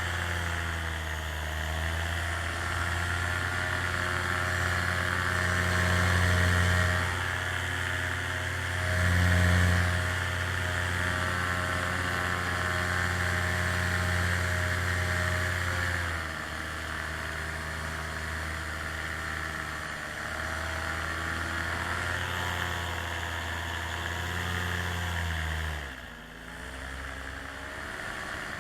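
A small aircraft's motor running steadily under power, its pitch dipping and recovering a few times, then falling away sharply about 26 seconds in.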